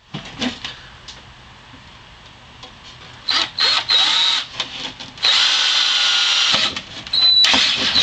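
Electric power drill run in short bursts: two brief spurts a little past three seconds, then a steady run of about a second and a half, and another near the end, with a thin high whine.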